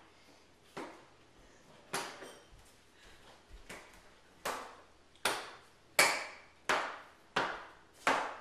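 Eight sharp knocks, each with a brief ring after it. The first few are irregularly spaced, then from about halfway they come steadily, about one every 0.7 seconds.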